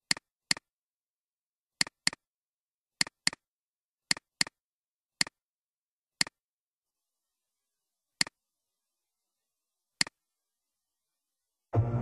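Computer mouse button clicks on near silence: four quick double-clicks opening folders, then several single clicks spaced a second or two apart.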